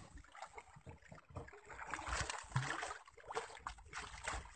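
Water splashing and sloshing against the side of a small wooden boat as a hooked yellowfin tuna is brought to the surface alongside, with a few light knocks.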